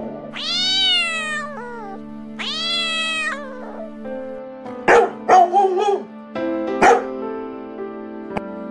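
Domestic cat meowing twice, each meow long and drawn out, rising then falling; then a dog barks several short times, over background music.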